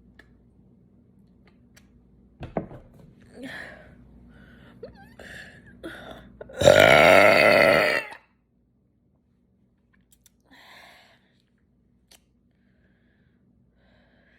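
A person burping deliberately: one long, loud burp a little before halfway, lasting about a second and a half, with a few smaller sounds leading up to it.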